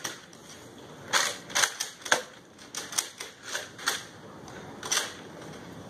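Spring-powered Nerf foam-dart blasters firing: a dozen or so sharp, irregular snaps, most of them between about one and five seconds in.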